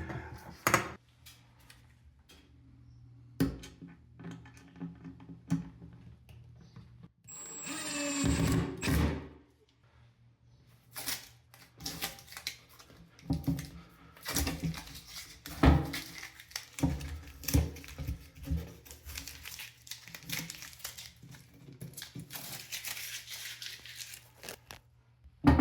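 Scattered clicks, taps and knocks of hinges and a cabinet door being fitted and handled, with a brief noisy rasp of about two seconds some seven seconds in.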